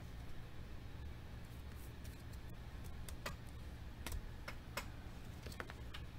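Scattered light clicks and taps of trading cards being handled and set down on a table, over a low steady hum.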